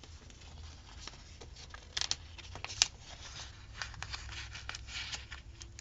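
Paper sticker sheets and a planner page being handled at close range: light rustling with a few sharp ticks and taps, the loudest about two seconds in.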